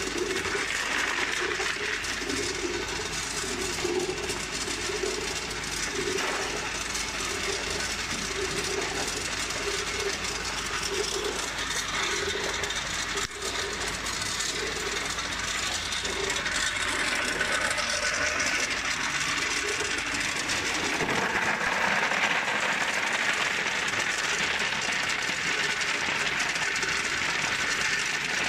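Tube ice harvested from a tube ice machine, the ice tubes pouring from the outlet chute and clattering continuously into a plastic basin over the machine's running noise. The clatter grows brighter about halfway through.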